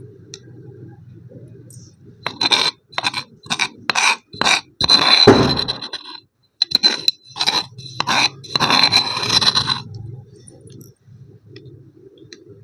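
Donut-shaped block of compressed powder being crushed: a run of short, crisp crunching scrapes starting about two seconds in, each longer stretch of crushing following a few quick strokes, with a brief pause in the middle, stopping near the end.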